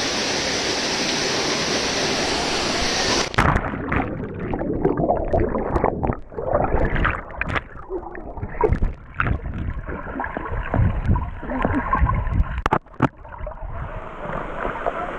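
Waterfall pouring into a rock pool, a steady rush of water. About three seconds in, the sound abruptly turns muffled as it is heard from under the water: churning and bubbling with many short knocks and thuds.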